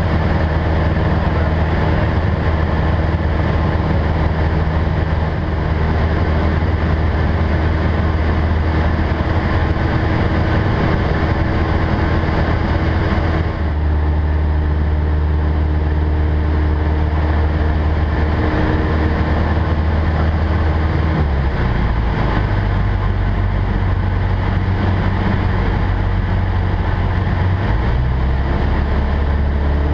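Cessna 172's four-cylinder Lycoming engine and propeller heard inside the cabin: a steady drone with airflow noise. The engine note shifts abruptly about halfway through and steps again twice near the end, as power and airspeed change through a spiral dive and its recovery.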